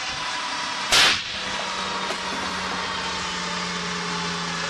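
Pickup truck engine running steadily, with one loud, sharp bang about a second in; the running carries on after it.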